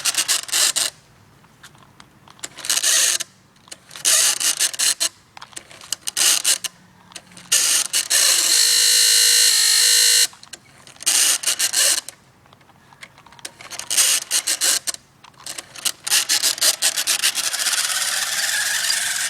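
Rapid mechanical clicking, like a ratchet, from a vehicle's drive. It comes in bursts of one to two seconds with short lulls between them, and a steady whine runs for about two seconds near the middle.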